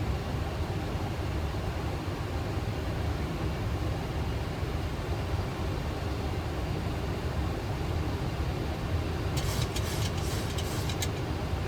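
Steady cockpit noise of a Boeing 737 in descent on approach: an even, low-pitched rush of airflow and aircraft systems. A few short clicks sound near the end.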